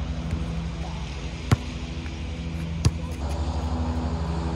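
A basketball striking hard twice, about a second and a half apart, after a shot. Under it a steady low motor hum runs throughout, growing a little louder about three seconds in.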